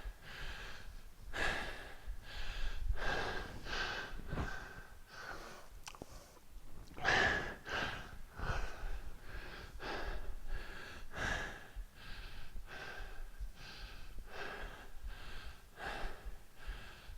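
A man breathing hard from exertion: short, heavy breaths about once a second, with no words.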